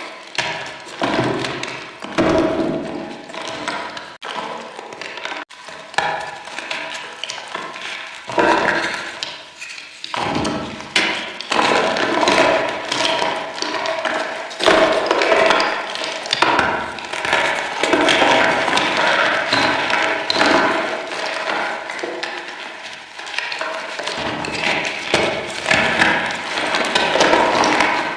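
Reformed chalk chunks being crushed and crumbled, a rapid run of crunching snaps and taps, sparser at first and near-continuous from about ten seconds in.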